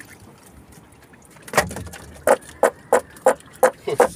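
A run of sharp knocks on wood, about three a second, beginning about one and a half seconds in, inside a small wooden fishing boat's hull.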